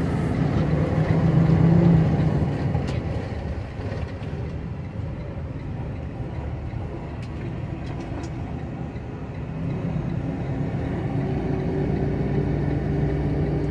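Semi truck's diesel engine heard from inside the cab as it drives slowly: the engine note is strong for the first couple of seconds, eases off through the middle, and builds again past the middle as the truck pulls.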